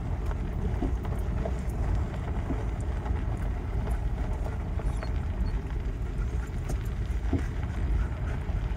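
Car driving slowly on a gravel road, heard from inside the cabin: a steady low rumble of tyres and engine with occasional faint clicks.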